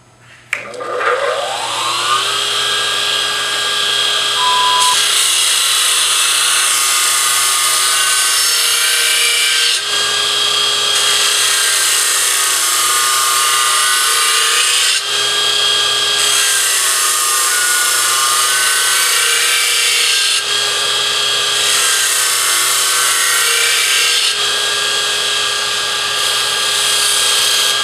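Burr King X400 belt grinder with a 1 hp motor starting up, its whine rising to speed, then running steadily. A dull lawnmower blade is sharpened against the running abrasive belt in about five passes, each a loud grinding hiss of steel being cut.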